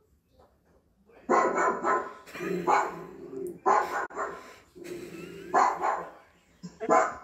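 Recorded dog barking played through an Amazon Alexa smart speaker: a series of barks starting about a second in, in answer to "what does a dog sound like?"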